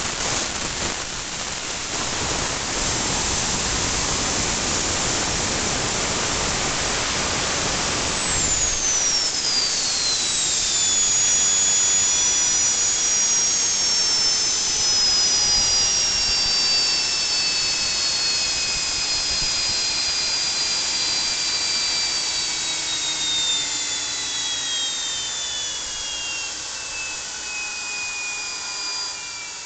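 Homemade gas turbine built from a Holset turbocharger, running with a loud, even rushing noise that cuts off suddenly about eight seconds in as the engine shuts down. The turbo then spools down: a whine of several tones falling slowly and steadily in pitch, fading toward the end.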